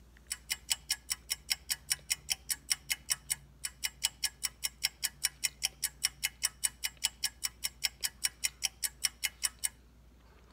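Fast, even ticking of a clock-style sound effect, about five ticks a second, with a brief break about three and a half seconds in, stopping abruptly shortly before the end.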